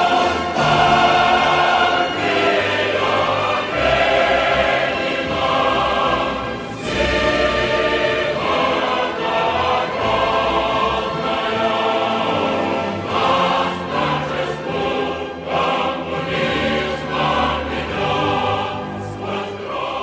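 Soundtrack music with a choir singing, many voices held together over accompaniment.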